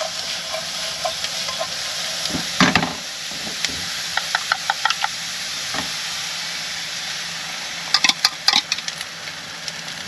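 Food frying in a pan with a steady sizzle, and a utensil clinking and tapping against the pan in short runs, most about two and a half seconds in, around four to five seconds in, and near the end.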